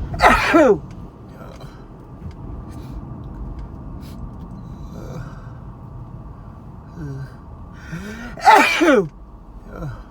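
A person with a head cold sneezing twice: two loud sneezes with a falling pitch, one right at the start and one near the end, the second led in by a short catching breath. They are part of a sneezing fit from the cold, set off by pollen.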